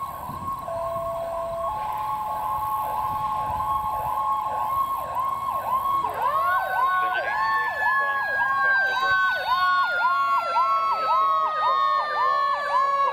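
Fire truck siren on an approaching rescue truck, yelping rapidly about two and a half times a second. About six seconds in, a second siren tone joins, rising in pitch and then slowly falling.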